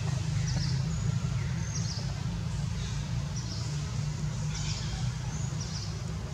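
Outdoor background: a steady low rumble under short, high chirps that recur every second or so.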